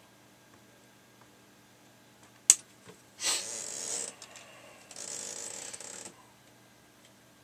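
Hand-tool work on a component lead with orange-handled pliers: one sharp snip-like click about two and a half seconds in, then two hissing, rasping noises of about a second each.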